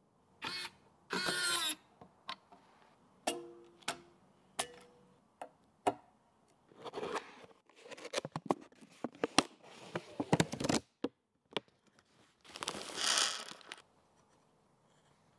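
Close-up handling sounds of PC cooler parts: scattered crisp clicks and taps of fan and cooler hardware, mixed with rustling and sliding of a paper envelope, busiest in the second half.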